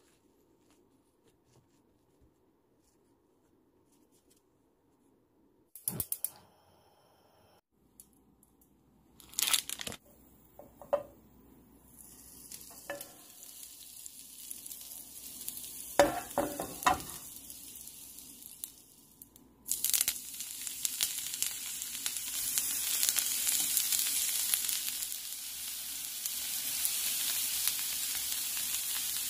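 A few knocks and clatters, then butter sizzling in a nonstick frying pan, its hiss growing over several seconds. About two-thirds of the way through, slices of lion's mane mushroom go into the hot butter and it jumps to a loud, steady frying sizzle.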